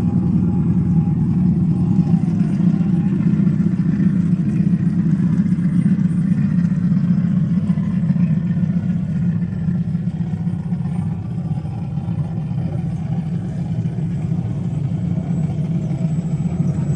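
Off-road vehicle engine running steadily with a dense low rumble, easing slightly about ten seconds in.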